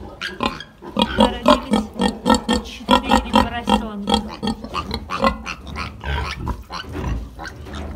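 Newborn Mangalica-cross piglets grunting: quick short grunts, about four a second, with a few higher squeals mixed in.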